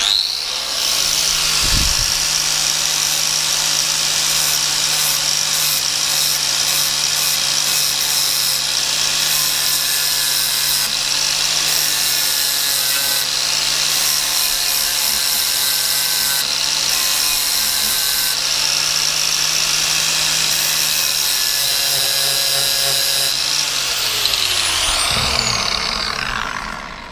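Angle grinder with a flap disc spinning up, then running at a steady high whine while it grinds the steel cutting edges of a hedge trimmer blade, the grinding hiss coming and going as the disc passes over the teeth. Near the end it is switched off and its pitch falls as the disc spins down.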